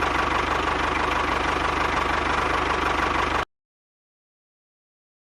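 A small engine running steadily with a fast, even pulse and a steady whine, cutting off abruptly about three and a half seconds in.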